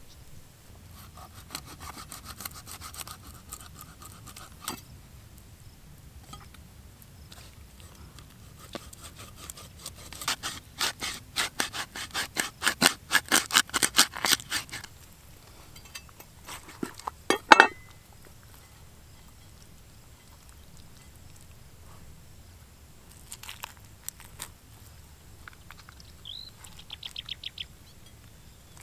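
A cleaver blade scraping the scales off a whole freshwater pomfret on a wooden stump: scattered light scrapes, then a fast run of loud scraping strokes lasting about five seconds in the middle, and one louder single stroke a couple of seconds later.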